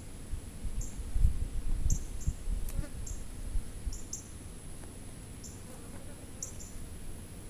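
Insects chirping outdoors in short, high, irregularly repeated chirps, over a low rumble that dies away after about four seconds, with one sharp click a little before three seconds in.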